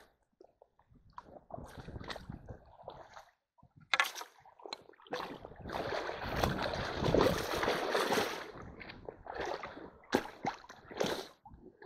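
Rubber boots wading and stomping in a shallow, rocky stream while a hand net is worked through the water: irregular splashing and sloshing, heaviest through the middle, with a few sharp knocks.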